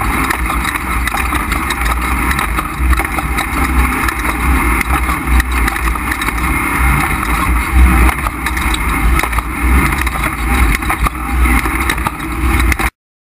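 Off-road race truck engine running hard, loud and continuous with a heavy low rumble, cutting off abruptly near the end.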